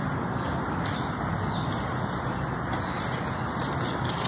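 Steady background hum of distant road traffic, with no distinct events.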